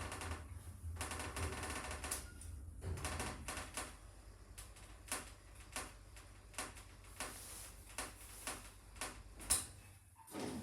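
Passenger lift running, with a steady low hum and a string of sharp mechanical clicks and knocks about twice a second. The hum stops about nine and a half seconds in, just after the loudest knock.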